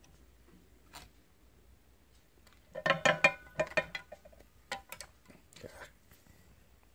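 Clattering from handling small hard objects on a hard work surface: a burst of knocks and clicks with a little ringing about three seconds in, then a few lighter clicks and a short scrape.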